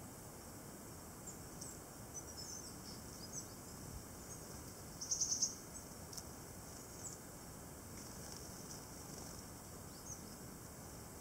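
Tits calling around a seed pile: scattered thin, very high call notes, with a quick run of about five louder high notes a little after five seconds in.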